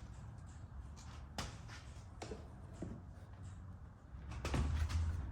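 A few light clicks and knocks of hands working the door's wiring connectors and plastic trim, busier near the end.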